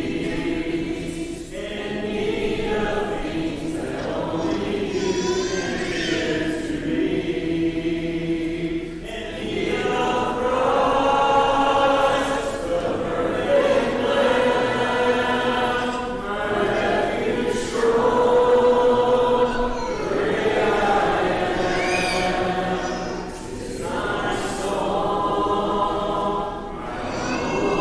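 Congregation singing a hymn together unaccompanied, in sustained sung phrases with brief breaks between lines.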